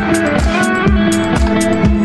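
Background music: a guitar-led track over a steady drum beat.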